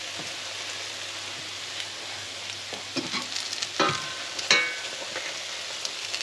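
Fat sizzling steadily in a frying pan, with a few clinks of tableware about three to four and a half seconds in.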